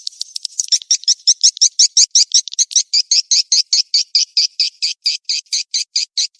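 Recorded edible-nest swiftlet calls, the 'mating chase' type used as a lure sound for swiftlet houses: a fast, even train of short high chirps, about six a second, after a sparser start.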